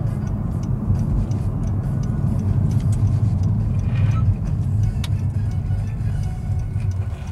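Road noise inside a moving car: a steady low rumble of engine and tyres, with scattered light clicks and rattles.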